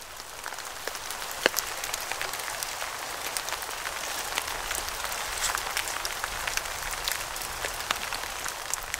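Steady rain-like patter: an even hiss dotted with many sharp ticks of single drops, the loudest about one and a half seconds in.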